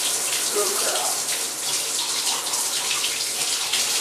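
Bathtub tap running steadily into the tub while the water is set to lukewarm for a dog's bath.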